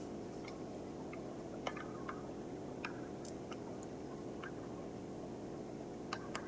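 Faint scattered clicks and light scraping of flour being scooped into a measuring cup, over a steady low room hiss.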